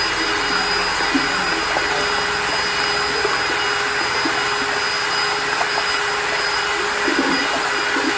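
A high-speed electric power tool running steadily under a constant whine, with a few faint knocks over it.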